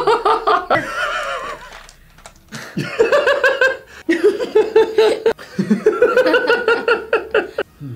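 Several people laughing hard in high-pitched, pulsing bursts, with a short lull about two seconds in.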